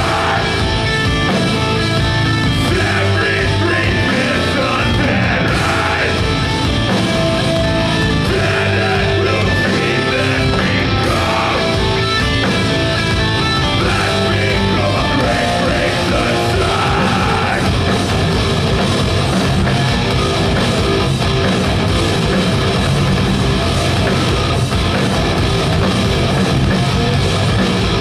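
Live heavy metal band playing: distorted electric guitars, bass and drum kit, with a singer's vocals over them, amplified through a concert hall's PA.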